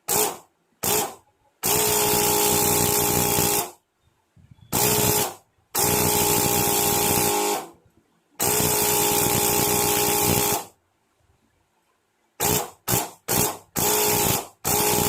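A thermal fogger's battery-powered electric starter buzzing at a steady pitch in bursts as the start button is pressed and released. First come two short blips, then four longer runs of one to two seconds each, then a flurry of quick taps, and another long run near the end. This is a spark test with the plug out of the engine, and the plug is sparking strongly.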